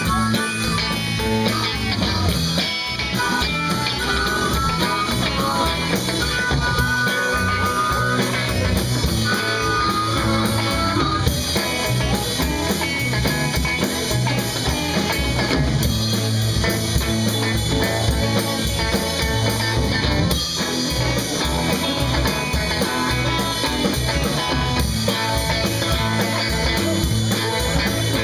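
Live blues-rock band playing: electric guitar over a steady drum-kit beat.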